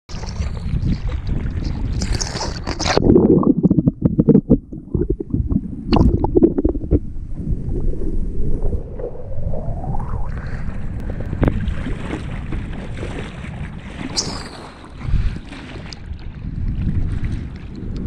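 Ocean water sloshing and splashing against a surfboard as it is paddled through choppy swell, over a low rumble of wind on the microphone. Louder splashes come about two to three seconds in, at about six seconds, and again near fourteen seconds.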